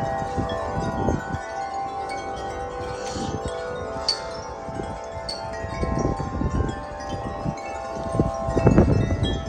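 Wind chimes ringing in the wind, several sustained notes overlapping. Wind gusts buffet the microphone a few times, hardest near the end.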